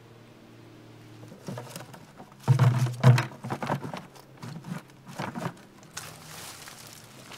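A string of knocks and clatters, loudest about two and a half to three seconds in, as a hose and plastic bucket are handled. From about six seconds there is a steady rustle as a plastic straw outdoor rug is spread out.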